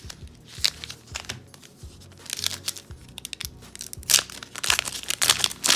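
Crinkling and tearing of a 2020-21 Upper Deck Series 1 hockey card pack wrapper being pulled open by hand, in irregular crackly bursts that grow louder and denser in the second half.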